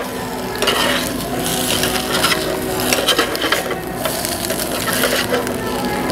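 Food frying in a pan, sizzling, with a utensil scraping and clicking against the pan.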